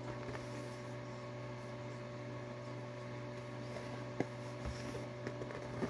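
Steady low electrical hum in a small room, with a few faint clicks from packaging being handled near the end.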